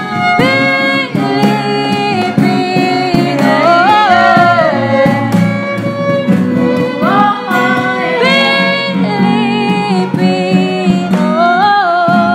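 Small acoustic band playing a song: voices singing over acoustic and electric guitars, a violin and a cajon keeping a steady beat.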